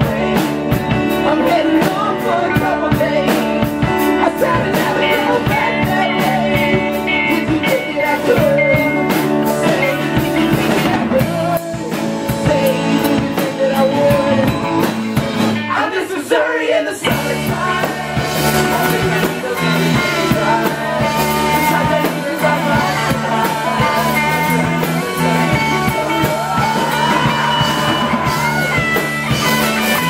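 Live rock band playing: electric guitars, bass guitar, acoustic guitar and drum kit. About halfway through, the bass and drums drop out for a moment before the full band comes back in.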